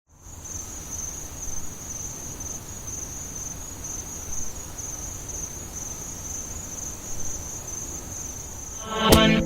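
Crickets trilling steadily over a low background rumble. Loud music with a sharp beat cuts in near the end.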